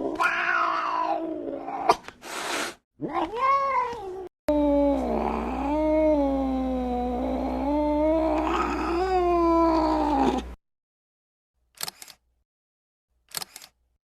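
Angry cat yowling: several shorter wavering cries, then one long, low, wavering caterwaul lasting about six seconds that cuts off abruptly. Two short sharp bursts follow near the end.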